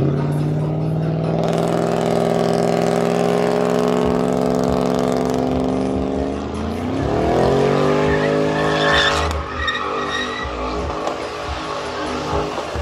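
Pickup truck engine held at high revs during a burnout, its tyres spinning and smoking. About six seconds in the revs climb higher, with tyre squeal around the peak, then the engine runs on unevenly.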